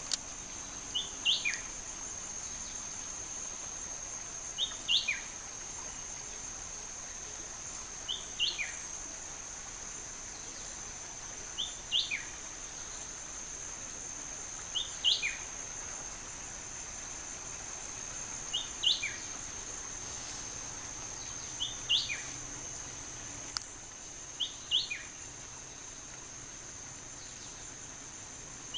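An unidentified bird singing the same short phrase eight times, about every three and a half seconds: two quick high notes, then a note sliding down. Underneath runs a steady high insect buzz.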